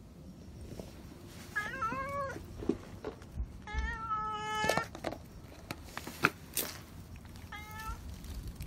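Black stray cat meowing three times, the middle call longest and wavering in pitch, with a few light taps between the calls. The cat is hungry and begging for food.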